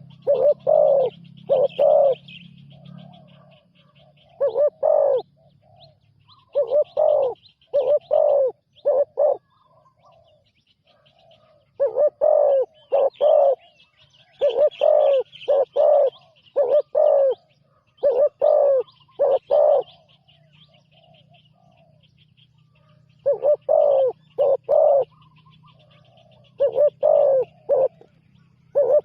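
Spotted dove cooing in short phrases of two to four deep notes, repeated every few seconds, with faint high chirping behind.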